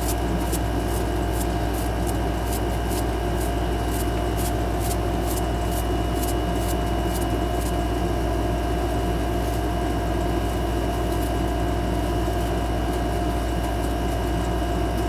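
Steady mechanical hum and whir with a few steady tones in it, like a running fan or air-conditioning unit. Light ticks at about two a second ride over it, stopping about ten seconds in.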